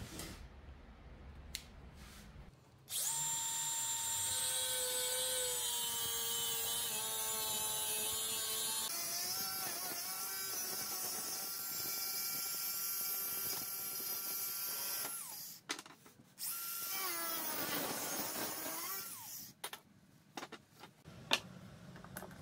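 DeWalt angle grinder with a cut-off disc starting about three seconds in and cutting through steel square tubing, a loud steady high whine. It stops briefly past the middle, then runs again, its pitch dipping and recovering as it bears down in the cut. A few clicks and knocks of handled metal parts follow near the end.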